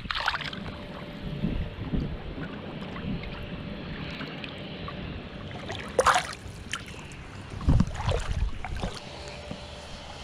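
A small snook released into shallow seawater, hitting the surface with a short splash about six seconds in. Wind rumbles on the microphone throughout.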